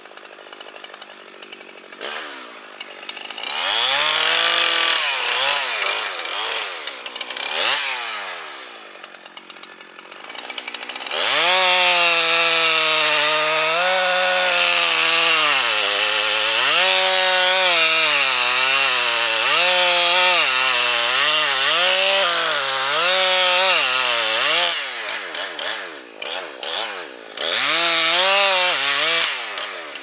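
Husqvarna two-stroke chainsaw cutting into a large sycamore trunk at full throttle, its engine pitch repeatedly sagging under load and recovering. It eases off to a lower rev for a few seconds about a third of the way in, and revs up again briefly near the end.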